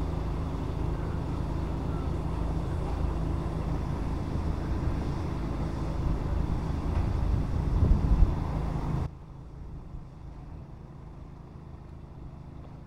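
Steady low rumble of wind on the microphone with a low, even engine hum under it, dropping abruptly about nine seconds in.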